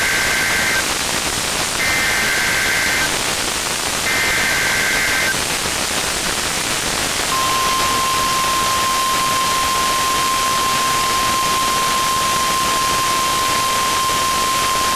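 NOAA Weather Radio Required Weekly Test over steady radio hiss: three short blasts of SAME digital header data about a second apart, then the steady 1050 Hz warning alarm tone, starting about seven seconds in and holding to the end.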